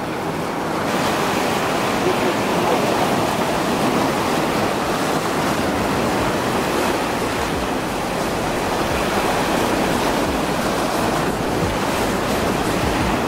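Rough sea surf breaking and washing over the rocks of a stone breakwater: a steady rushing of foaming water that swells a little louder about a second in.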